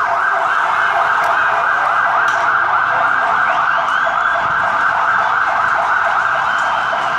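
Emergency vehicle siren sounding a loud, fast, repeating warble without a break.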